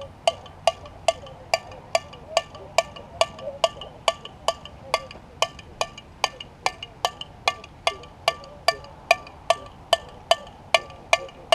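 Drumsticks clicking out a steady marching tempo, about two and a half sharp, ringing clicks a second and evenly spaced: the beat the marchers step to.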